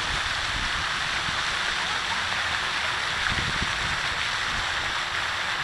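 Steady rush of wind and choppy lake water lapping around a floating RC floatplane, picked up by its onboard camera close to the water surface. No motor is running; the propeller stands still.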